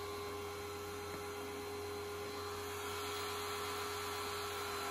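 Pressure washer running with a steady mechanical hum that holds one constant tone, getting slightly louder about three seconds in.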